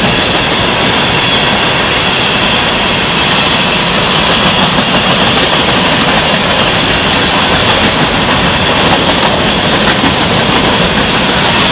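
Freight train's covered hopper cars rolling past on steel rails: the loud, steady noise of the wheels on the track.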